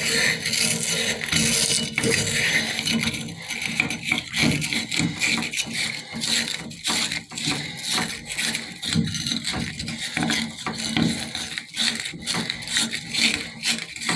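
Wire brush scrubbing white, scaly corrosion out of a Delta tub and shower valve body, a rapid run of back-and-forth scraping strokes.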